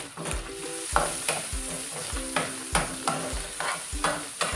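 Onion and ground pork sizzling in oil in an aluminium wok while a spatula stirs and scrapes through them, about two to three scrapes a second over the steady sizzle.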